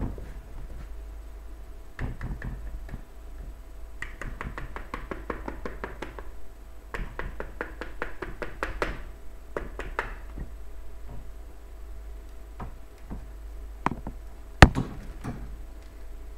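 Wire whisk beating thick sponge-cake batter by hand in a plastic bowl: two runs of fast clicking and clacking, each about two seconds long, with scattered single taps. Two sharp knocks come near the end, the second one the loudest.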